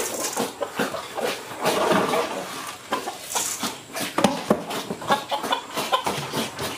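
Noisy eating from a feed pan: irregular wet smacks and chomps in quick succession, with short animal grunts among them.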